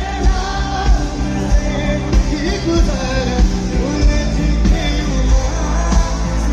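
Loud live concert music through a PA system: a singer's voice over a band, with a heavy, steady drum beat.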